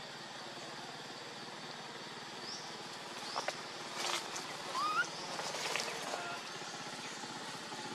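A steady engine drone with a fast even pulse, with a few short rising chirps and some clicks about halfway through.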